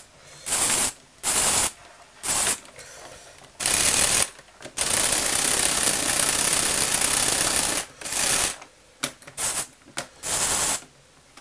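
Lego Technic snowmobile model's plastic gear mechanism running in repeated bursts with a rapid rattling clatter; the longest run lasts about three seconds in the middle, with shorter bursts before and after.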